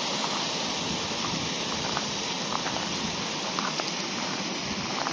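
Steady rush of a mountain burn spilling over small rock waterfalls into a pool, with a few light ticks over it.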